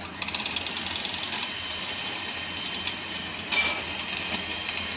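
Electric hand mixer running steadily with a whine, its beaters whipping butter in a glass bowl. A brief louder clatter comes about three and a half seconds in.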